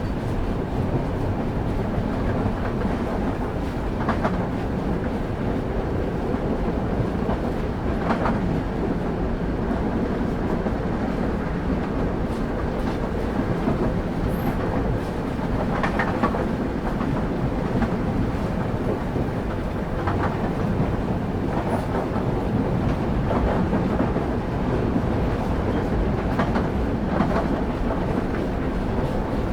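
Railway carriage wheels running on the track, heard on board a moving train: a steady low rumble, with occasional sharper clacks at uneven intervals as the wheels pass over rail joints.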